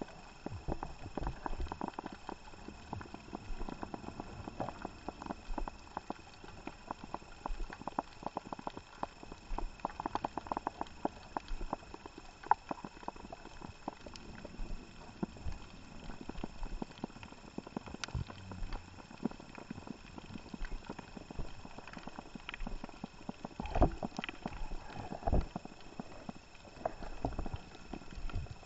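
Irregular crackle of snapping shrimp on a Hawaiian reef, heard underwater as many sharp clicks of varying loudness, over a faint steady hiss.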